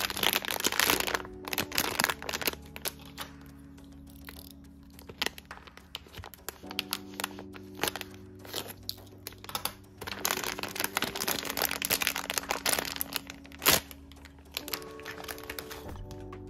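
Crinkling and rustling of a shiny plastic blind-box bag being handled and torn open, in two busy spells, with one sharp crack about three-quarters of the way through. Soft background music plays underneath.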